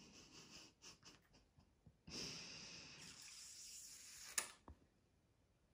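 Near silence, with a faint breathy exhale lasting about two seconds near the middle, followed by a soft click.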